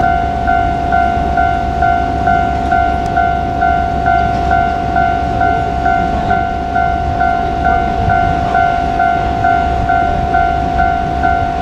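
Japanese railway level-crossing warning bell ringing steadily, a repeating electronic ding about twice a second, over the low rumble of a KiHa 47 diesel railcar.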